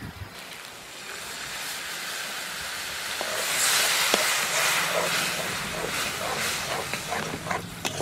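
Milk poured into hot fried spice paste in a metal kadai sizzles. The hiss swells from about a second in, is loudest around the middle, then eases while a metal spatula stirs and scrapes the pan.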